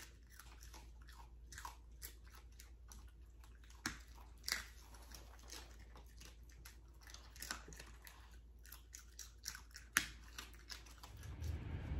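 A small dog chewing a treat, with faint, irregular crunching clicks. About ten seconds in there is one sharp snap, a dog nail clipper cutting through a nail.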